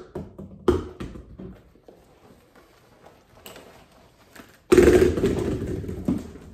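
Faux leather handbag being handled: a sharp knock at the start and another under a second in, soft rustling, then a loud rustle lasting about a second and a half near the end as the bag is lifted and swung.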